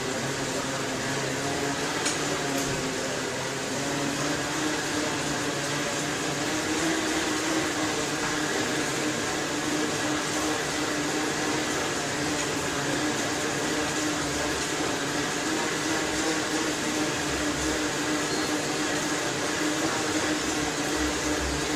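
Bicycle rollers spinning under a mountain bike's tyres as the rider pedals: a steady whirring hum whose pitch rises slightly a few seconds in and then holds.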